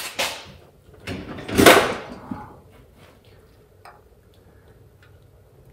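Stamped-steel valve cover being worked onto a VW Beetle engine's cylinder head over its gasket: a short metal scrape with a sharp click, then a longer scrape about a second and a half in. A few faint ticks follow as the wire bail is levered.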